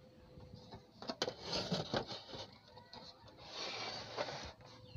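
Scraping and rubbing handling noises with a few sharp clicks, in two stretches: one starting about a second in and another near the four-second mark. They come from handling a CRT television set and its plastic cabinet.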